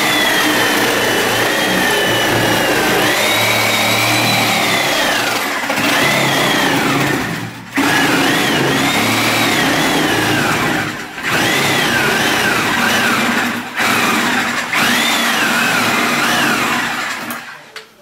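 Reciprocating saw cutting into a wall's drywall and framing. Its motor whine rises and falls with the trigger and the load, it pauses briefly several times, and it cuts off near the end.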